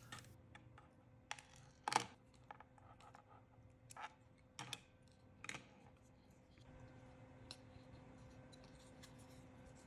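Faint, scattered clicks and taps of small plastic parts and wires being handled and plugged into a circuit-board connector, the sharpest about two seconds in.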